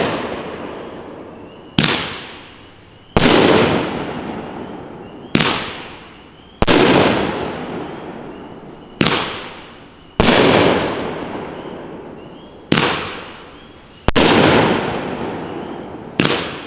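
Consumer firework cake shots bursting, about nine sharp bangs spaced one to two and a half seconds apart, each followed by a fading tail.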